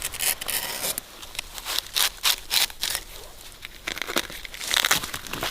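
Dry palm-fibre sheaths being scraped and torn off a windmill palm trunk: a quick, irregular run of rasping, ripping strokes.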